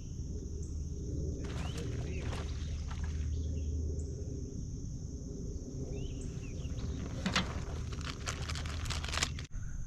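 Outdoor ambience: a steady low rumble and a steady high hiss, with a few short rising bird chirps. Bursts of sharp clicking and rattling come about two seconds in and again around seven to nine seconds in.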